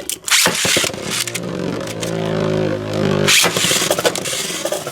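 Beyblade Burst spinning tops whirring and scraping as they spin and clash in the stadium, with a steady, slightly rising whir for about two seconds in the middle.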